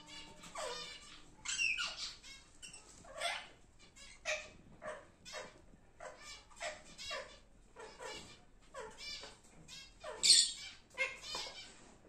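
Lovebirds chirping: a steady run of short calls, one or two a second, each dropping in pitch, with the loudest about ten seconds in.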